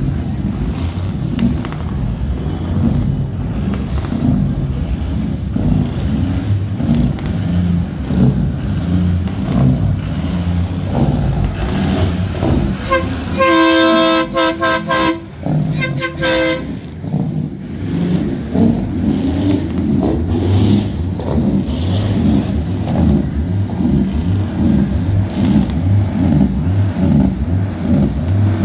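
Diesel semi-truck engines running as the trucks roll slowly past close by. About halfway through a truck air horn sounds: a long blast of nearly two seconds, then a shorter one.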